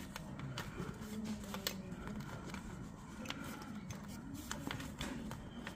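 Irregular light clicks and rustling of electrical wiring being pulled through a grommet hole in a camper's pop-top.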